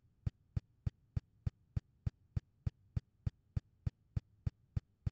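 A steady series of short, evenly spaced clicks, about three a second.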